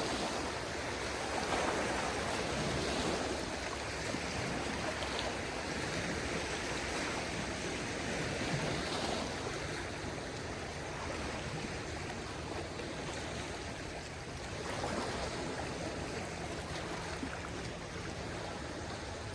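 Small waves of a calm sea washing steadily onto the shore, a continuous soft rush of water that swells and eases gently.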